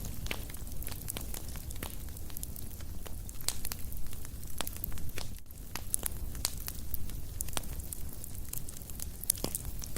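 Wood fire crackling: many irregular sharp pops and snaps over a low steady rumble.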